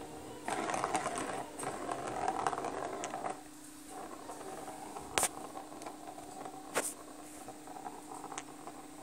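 A plastic ball rolling around the plastic track of a round cat scratcher toy, a continuous rattle for about three seconds. Later come two sharp knocks about a second and a half apart.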